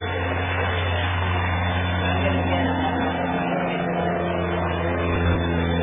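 Jump plane's engines idling steadily on the ground, a low even drone.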